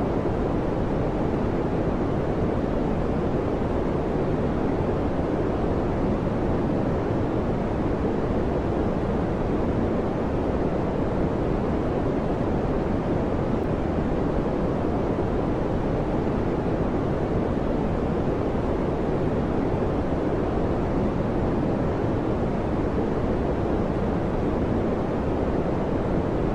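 Steady, even fan noise: a deep rushing hiss with no hum or rhythm, strongest in the low range and dull at the top, unchanging throughout.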